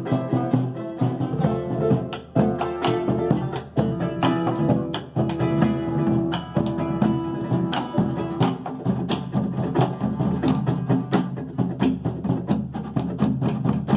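A charango and an acoustic guitar playing an instrumental Andean tune together, a continuous stream of quick plucked notes over the guitar's accompaniment.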